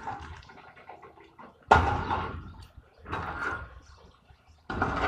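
Concrete apartment block being torn down by an excavator: three crashes of breaking, falling rubble, each starting suddenly and dying away over about a second, the first the loudest.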